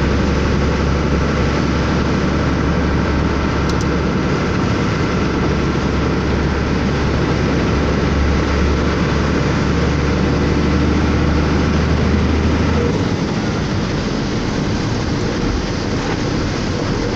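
Truck engine running with hissing tyre noise on a rain-wet road, heard from inside the cab. The low engine hum steps down about 13 seconds in.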